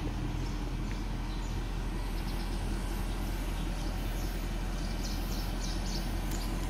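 Range Rover engine idling, a steady low hum with no change in level.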